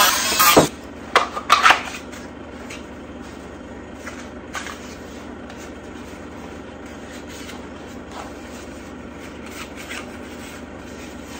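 Dremel rotary tool sanding the edge of a Kydex holster, cutting off about half a second in. After that come a few short scrapes and clicks, then faint rubbing as the holster is handled.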